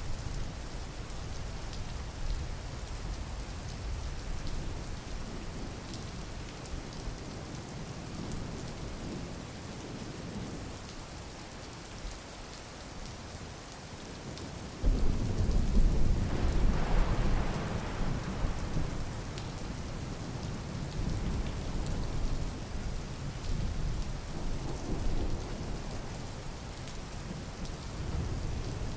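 Steady rain falling, with a sudden clap of thunder about halfway through that rumbles on and fades over several seconds.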